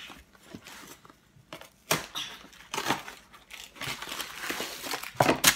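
Cardboard brownie-mix box being torn open by hand: irregular rustling and scraping with a few sharp rips, the loudest near the end.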